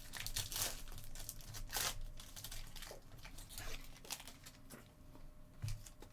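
Foil wrapper of a baseball trading card pack crinkling and tearing as it is ripped open, with a run of short crackles as the cards are handled.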